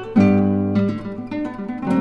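Background music played on a plucked acoustic guitar, several notes or chords struck in turn.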